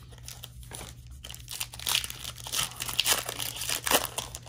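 Plastic trading-card pack wrapper being torn open and crinkled by hand: a dense run of sharp crackles starting about a second in and dying away near the end.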